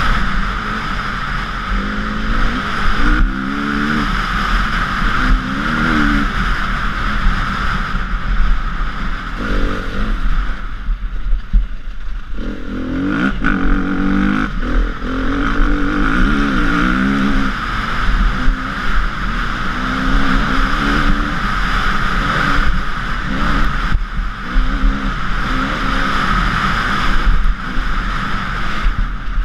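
KTM EXC 350 four-stroke single-cylinder enduro engine revving up and down as the bike is ridden hard over loose gravel, over a steady rushing of wind and stones. Around the middle the revs fall away briefly, then climb again.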